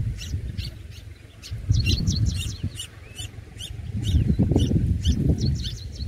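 Red-whiskered bulbul nestlings begging with rapid, short, high chirps, several a second, while being fed at the nest. Under them a low rumble comes and goes and is the loudest sound, strongest at the start and again from about four seconds in.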